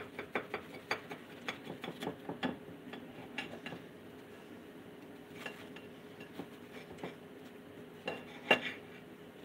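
A table knife sawing through a toasted grilled cheese sandwich, its blade clicking and scraping against the plate in quick strokes for the first couple of seconds. Scattered taps follow, with a louder clatter of metal on the plate near the end.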